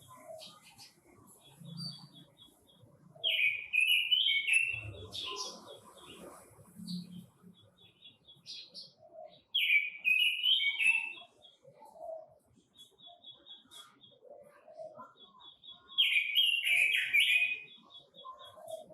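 Red-billed leiothrix (Pekin robin) singing: three loud warbling phrases about six seconds apart, with rapid runs of short high notes between them.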